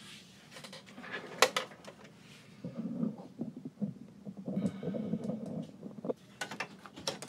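A plastic embroidery hoop being fitted onto the embroidery arm of a Baby Lock embroidery machine and latched into place: a sharp click about a second and a half in, handling and rustling, then a quick run of clicks near the end.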